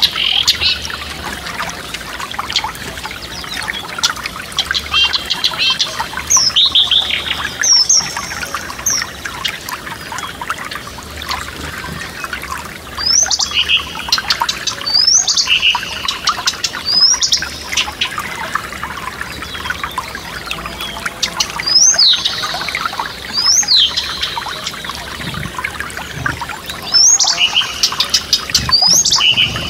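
Forest stream running steadily, with a songbird singing in bouts of short phrases of rising whistles and quick trills.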